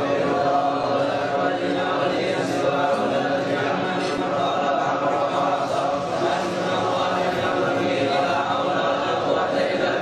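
Many men's voices chanting together in unison: a continuous devotional group chant.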